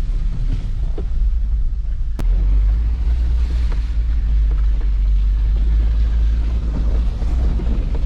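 Wind buffeting the microphone outdoors: a heavy, steady low rumble with a hiss over it, and a single click about two seconds in.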